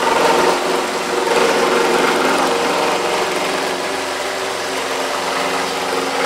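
Metabo SSE 18 LTX BL 18-volt brushless cordless reciprocating saw running at full speed, its blade cutting steadily through a wooden 2x10.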